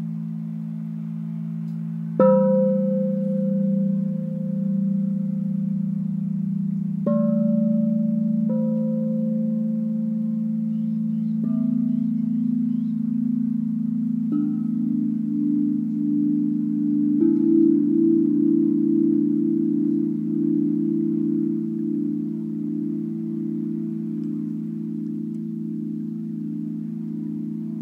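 Large tuned wind chime of long polished-aluminium pipes, tuned to an E minor pentatonic scale, hit by its leather-wrapped stone striker. About six single strikes come a few seconds apart, each deep bell-like tone ringing on and overlapping the others. The last strike comes about two-thirds of the way through and the tones keep sounding after it.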